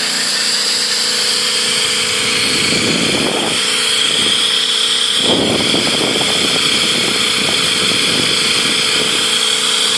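Homemade five-rotor micro Tesla turbine running on compressed air: a loud, steady high whine over the hiss of the air jets.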